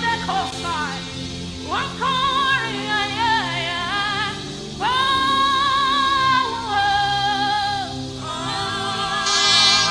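Gospel worship singing with a live band: a singer holds long notes with vibrato and ad-libs over steady keyboard and bass accompaniment.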